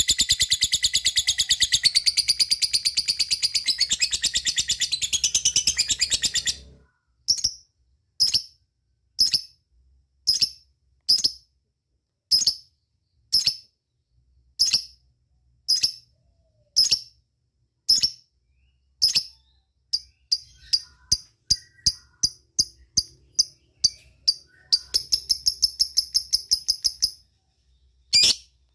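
Lovebird calling: a long, rapid, high chattering trill (ngekek) that stops after about six seconds, then sharp single 'cik' chirps about once a second that quicken to about three a second, and a second short chattering trill near the end.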